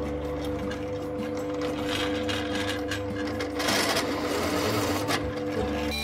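Drill press running with a countersink bit cutting into annealed spring steel, a steady machine hum. About three and a half seconds in the cutting turns louder and rougher for a second or two as the countersink bites into the metal and throws chips.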